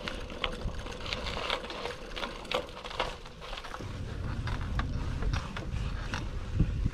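Bicycle rolling and coasting: irregular ticks and rattles from the bike over the pavement, then a steady low rumble from about four seconds in as the tyres run onto the planks of a wooden boardwalk.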